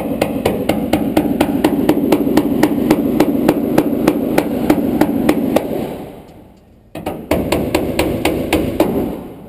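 Power tool running against a rusted-in window screw, with a rapid, regular knocking of about seven strikes a second over its motor hum, breaking the screw loose or popping its head off. It stops about six seconds in and starts again a second later for another two seconds.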